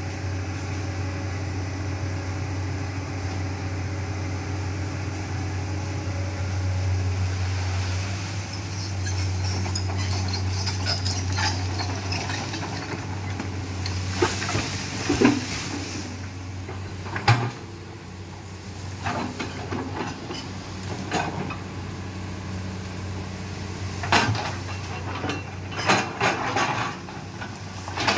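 Komatsu crawler excavator's diesel engine running steadily, with several sharp knocks and snaps in the second half as the bucket digs soil and tears away brush and banana plants.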